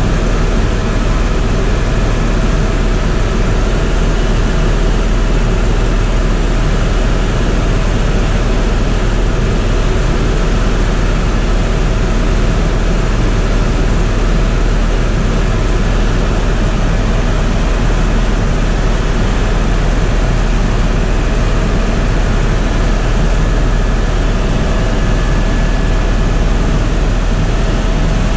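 Tour helicopter in level flight, heard from inside the cabin: a loud, steady mix of turbine engine and rotor noise with a deep low rumble and faint steady whines above it.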